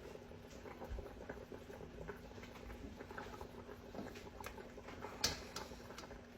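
Faint, irregular popping and light clicking at a pot of simmering chicken and rice soup, with one sharper click about five seconds in.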